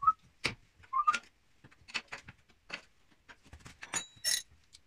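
Irregular sharp metallic clicks and clinks of steel spanners being handled at a moped's rear wheel, about a dozen in all, the loudest a ringing clink near the end.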